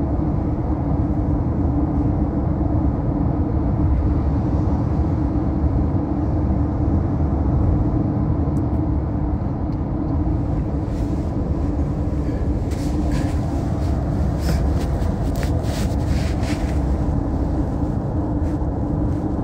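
Steady road and engine noise inside a car's cabin while driving: a constant low rumble with a steady hum. A few light clicks come in the middle of the stretch.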